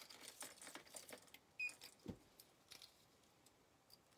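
Faint metal clinking and jingling of a silver-tone chain necklace with hammered metal pieces being handled, densest in the first second and a half, with a soft thump about two seconds in and a few more clinks after.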